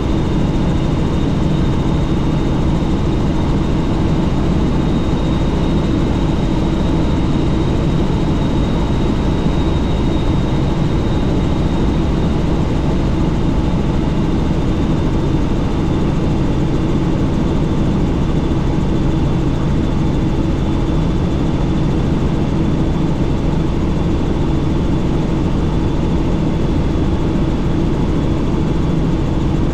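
Helicopter in flight heard from on board: a steady drone of engine and rotor over rushing noise, with a thin high whine running through it.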